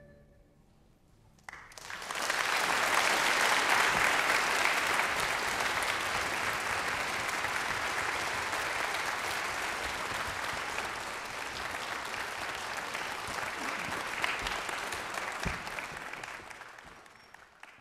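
Concert hall audience applauding at the end of a performance. The clapping breaks out about a second and a half in, swells quickly, holds steady and dies away near the end.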